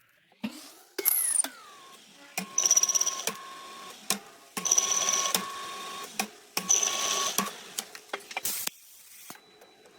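A small motor whining in short bursts, three times about two seconds apart, each burst starting with a click, amid scattered clicks and one falling whine near the start.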